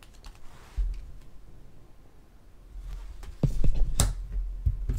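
A deck of tarot cards being handled: soft rustling and low bumps, then a run of light clicks and taps of the cards in the hands and against the table, with one sharp click about four seconds in.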